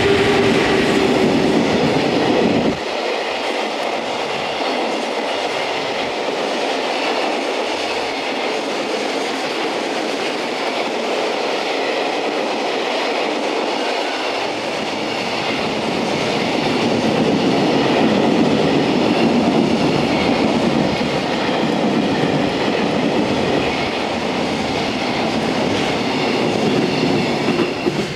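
JR Freight EF210 electric locomotive passing with a steady whine that stops about three seconds in, followed by a long string of container wagons rolling by, wheels clattering over the rails.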